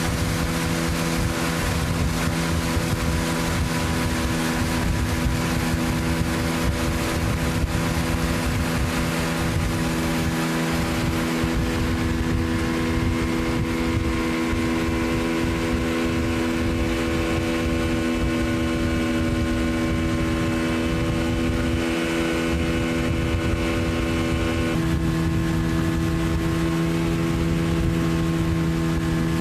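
A boat's motor running steadily under way, its even hum over a constant rushing hiss of wind and water. The motor's note shifts slightly near the end.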